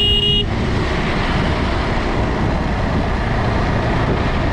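Motorcycle riding noise, a KTM 390 Adventure's single-cylinder engine running under steady wind and road noise. A short horn beep is cut off about half a second in.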